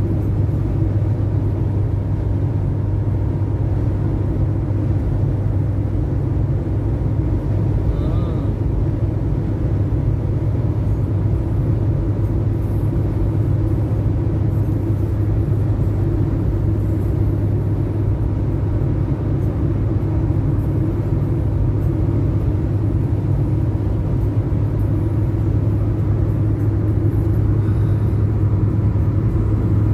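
Steady, unchanging low rumble of a running vehicle, with a constant deep hum and an even haze of noise.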